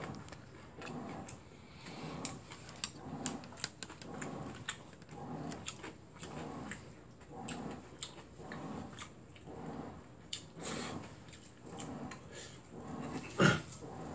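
Washing machine running through its wash cycle, its drum swishing in an even rhythm about every two-thirds of a second, with small clicks scattered over it and one sharp knock near the end.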